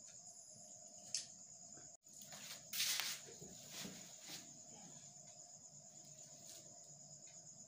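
Crickets chirping steadily as a faint high-pitched background. About three seconds in, a short loud rustle is followed by a few light clicks.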